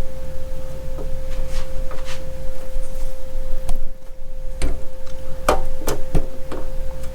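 Steady low electrical hum with a thin constant tone, under scattered light clicks and knocks of objects being handled.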